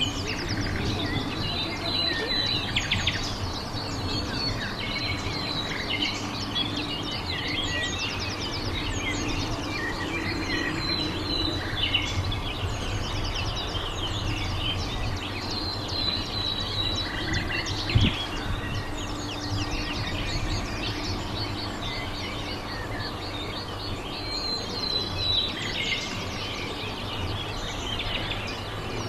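Small birds chirping repeatedly over a steady low hum, with one sharp knock about eighteen seconds in.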